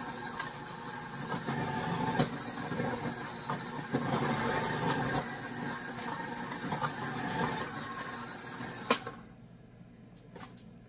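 Electric food processor running steadily while zucchini chunks are pushed down the feed tube onto the shredding disc, with a few sharp knocks along the way. The motor cuts off suddenly about nine seconds in.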